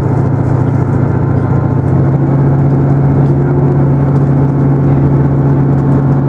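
Cabin sound of a Class 158 diesel multiple unit pulling away under power: the underfloor diesel engine drones with a steady low hum that firms up about two seconds in, over rumble from the wheels and track.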